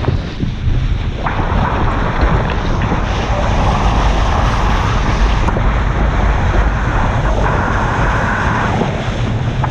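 Wind buffeting the microphone of a fast-moving inflatable boat, over the rush of its wake and spray on open sea; a steady hiss of water comes up about a second in and eases near the end.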